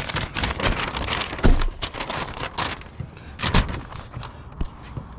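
A large paper map being unfolded and handled, rustling and crinkling irregularly, with its loudest crackles about a second and a half in and again past three and a half seconds.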